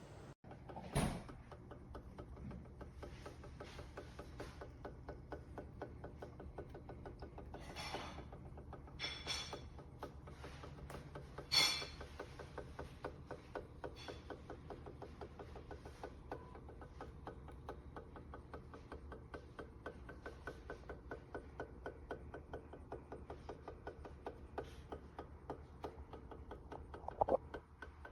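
Laminator feeding a sheet through its rollers, the gear drive making a rapid, even ticking. A few louder rustles and knocks come about a second in, in the middle and near the end.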